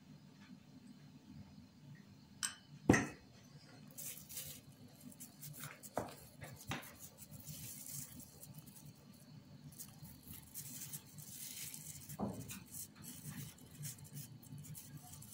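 Thin plastic sheeting crinkling and rustling under hands working dough, with a sharp knock about three seconds in and a few lighter taps later.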